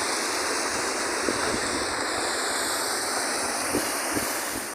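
Steady rush of falling and churning water from a waterfall and its pools, cutting off suddenly just before the end.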